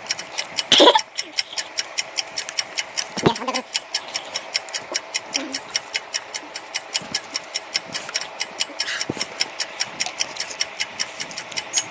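Rapid, steady clock-like ticking, about five ticks a second, like a countdown-timer effect, with a few brief voice sounds.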